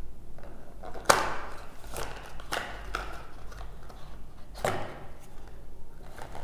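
Cardboard packaging being handled as a small card compartment is worked out of a box: a few sharp taps and scrapes of card, the loudest about a second in and another near the end.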